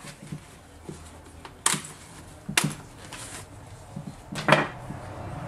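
Interior liner pads being pulled out of a SHOEI Z-7 full-face helmet: several sharp plastic clicks and knocks of snap fasteners and the shell being handled, the loudest about four and a half seconds in.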